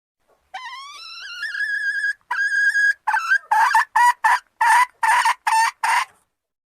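Domestic hen cackling. A long rising note and a shorter held note are followed by a quick run of about eight short, loud cackles that stop abruptly.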